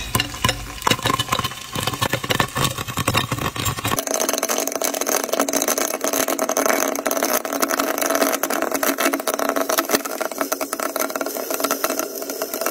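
Food simmering and crackling under the lid of a clay pot on the burner: a dense run of fast ticks over a steady hum. The low rumble drops out about four seconds in.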